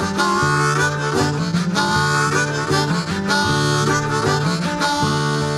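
Background music: the instrumental break of a blues-rock song, a harmonica playing the lead over a band with a steady repeating bass line.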